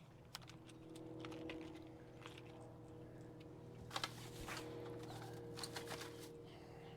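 Faint scattered clicks and taps, two close together about four seconds in, over a steady low hum.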